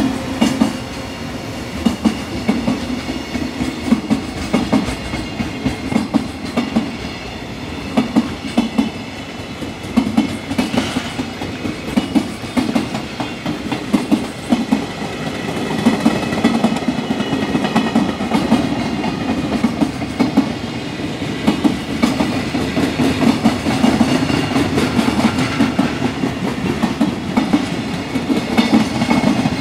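Wheels of a long freight train's container wagons clattering over rail joints as they pass: sharp knocks in regular repeating groups over a steady rolling rumble.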